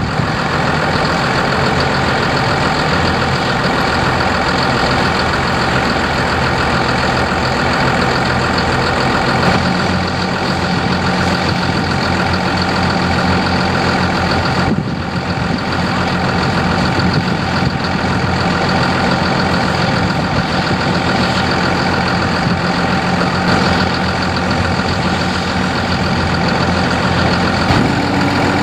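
Heavy diesel engines of construction machinery running steadily, first from a loaded articulated dump truck and then from a Caterpillar tracked excavator, with a short break about halfway.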